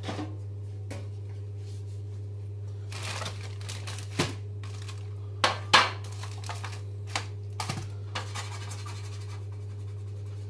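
Kitchen handling noises: scattered knocks and clatters of items set down on the worktop, the loudest two close together a little past halfway, with short bursts of rustling and crinkling packaging as roast potatoes are fetched, over a steady low hum.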